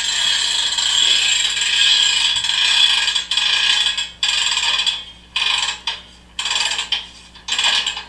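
Freight car hand brake being wound on, played as a sound effect: ratchet clicking steadily for about three seconds, then about five short cranks.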